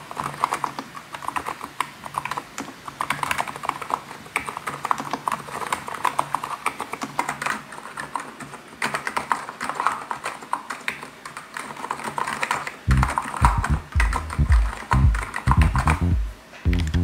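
Fast steady typing on an Abko Hacker KN01 tenkeyless keyboard with electro-capacitive (non-contact) switches: a dense run of soft, bubbly keystrokes. About two-thirds of the way through, background music with a heavy bass beat comes in under the typing.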